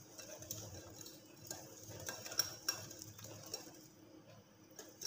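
Wire whisk beating a thick besan (gram flour) batter in a glass bowl: faint, irregular clicks and taps of the whisk against the glass, with soft wet stirring.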